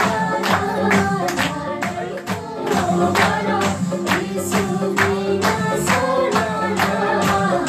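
Upbeat song with singing over a steady percussion beat, playing loudly for dancing.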